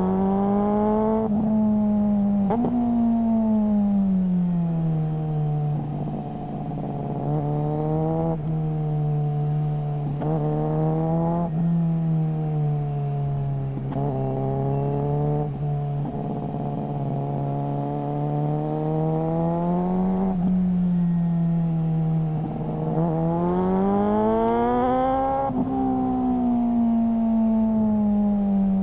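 Suzuki GSR600 inline-four running through a GPR Ghost aftermarket exhaust while being ridden. The engine note keeps rising and falling, with sudden breaks in pitch every second or few seconds as it changes gear.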